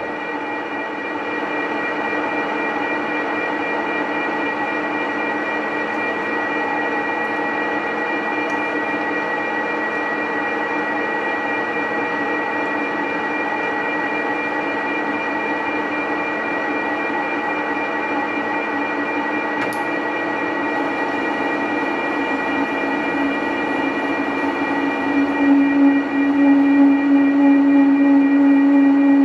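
Manual metal lathe running under power, its gears whining steadily. From about 25 seconds in the threading tool bites into the 316 stainless steel bar and a louder, uneven ringing hum comes in: chatter ('harmonics') from the long, unsupported workpiece.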